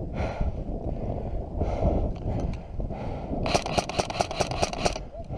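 Rustling and jostling close to the microphone, then about three and a half seconds in an airsoft gun fires a full-auto burst of about a second and a half, roughly ten shots a second.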